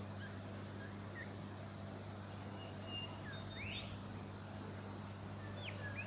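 Faint bird calls: scattered short chirps and whistles, with a quick rising whistle about halfway through and a few more glides near the end, over a steady low hum.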